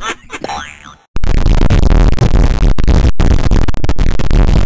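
A cartoon mouse's laugh mangled by heavy editing effects. A brief wobbling, pitch-bending sound cuts off about a second in, then gives way to a loud, harshly distorted blare broken by short dropouts.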